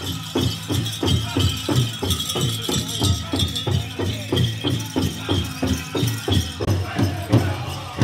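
Powwow big drum and singers performing a grand entry song: steady drumbeat at about two and a half strokes a second under high-pitched singing, with the jingle and rattle of dancers' bells. The drumbeat thins out about seven seconds in.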